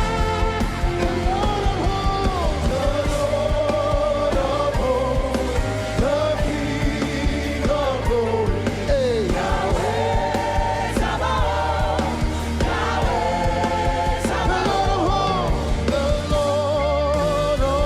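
Lively gospel praise music with singing voices that bend and waver over a steady bass line.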